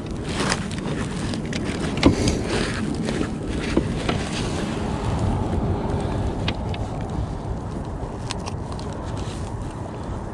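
Steady rushing wind noise on the microphone, with a handful of sharp clicks and knocks as a landed speckled trout is handled in an aluminium-framed landing net in a kayak, the strongest knock about two seconds in.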